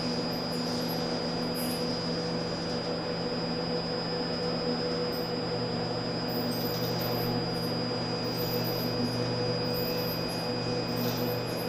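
Steady electrical hum from the servo-driven PUMA 560 robot arms and their platforms: a low multi-tone hum with a thin high whine above it, growing slightly fuller about halfway through.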